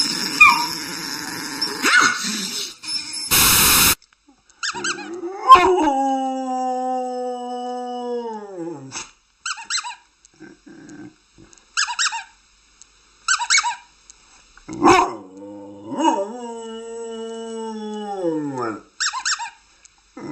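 A dog making two long howls that slide down in pitch, one about five seconds in and one about fifteen seconds in, with short sharp barks between and after them.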